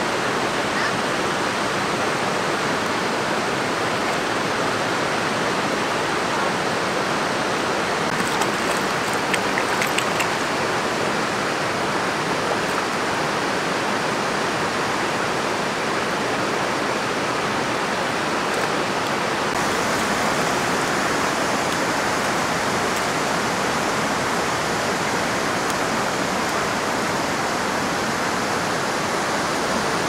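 Gorge river rushing steadily over a stony bed: an even, unbroken wash of flowing water.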